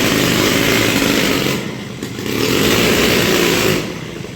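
Small 75cc two-stroke petrol engine running loudly just after being started, rising in two surges of about a second and a half each with a brief easing between, then settling lower near the end.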